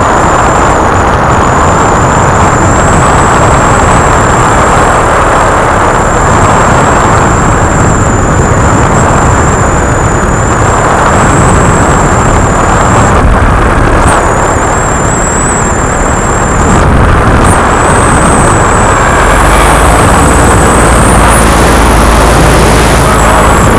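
Paramotor engine and propeller running steadily in flight, loud, with a thin high whine over it. About twenty seconds in, the whine steps up in pitch and the low drone gets heavier.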